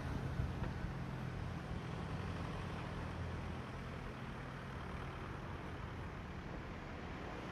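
Street traffic: a passing van's engine hums low for about the first four seconds, then fades into steady road noise.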